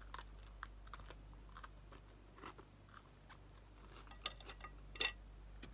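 Faint close-up chewing and crunching of a battered corn dog, with scattered small crackles and two louder crunches about four and five seconds in.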